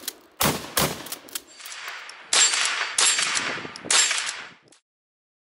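Gunshots: a quick string of shots in the first second and a half, then three louder, slower shots, each trailing off. The sound cuts off abruptly about five seconds in.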